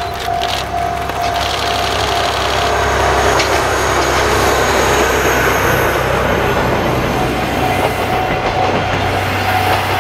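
Diesel locomotive engine running as the DL Taiju train, a DE10 diesel-hydraulic locomotive hauling passenger coaches, passes close by, with the steel wheels rolling over the rails. The sound is loudest as the coaches go by mid-way.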